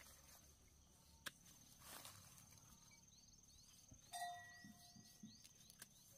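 Near silence: faint garden ambience with a steady high-pitched insect drone, a few soft clicks, a short pitched call about four seconds in, and faint bird chirps in the second half.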